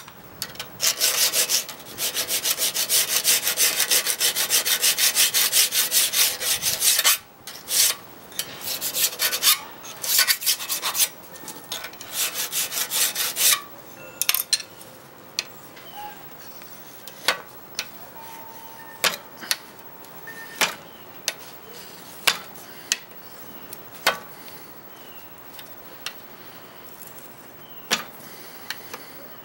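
Rapid back-and-forth scraping strokes of a steel tool along the edge of a thin Japanese saw-blade scraper held in a vise, as the edge is dressed and a hook is turned on it. The strokes run steadily for about seven seconds, come in shorter groups until about halfway through, and then give way to scattered light clicks.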